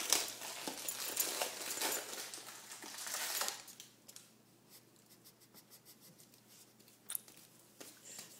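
Crinkling, rustling noise, like something being handled, for about three and a half seconds. Then it goes quiet, with faint light ticks and one sharp click about seven seconds in.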